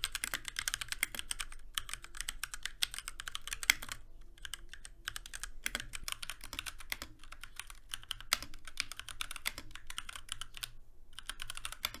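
Fast typing on a Keychron K6 mechanical keyboard: a dense run of key clicks and clacks. It is first typed with its stock ABS keycaps, then, after a brief pause, with PrismCaps PBT keycaps, as a sound comparison of the two keycap sets.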